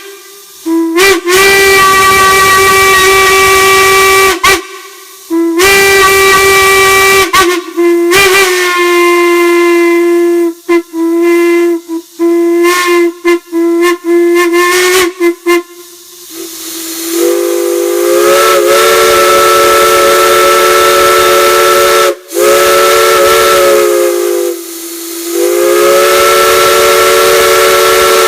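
Steam whistles blowing with a hiss of steam. First a single-note whistle sounds in several long blasts, then a run of quick short toots. From about halfway through, a chime whistle sounds a chord in three long blasts.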